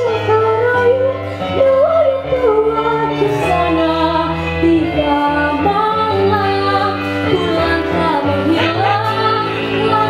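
A girl singing solo into a handheld microphone, her voice gliding and sustaining notes over an instrumental accompaniment with a steady bass line.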